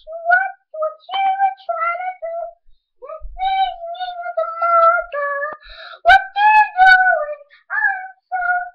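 A child singing in a high voice, short sung notes and phrases broken by brief pauses, with a few sharp knocks about six seconds in.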